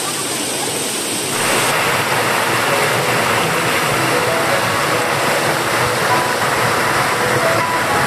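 Small waterfall cascading over rock ledges: a steady rush of falling water that grows louder about a second and a half in, close to the pour.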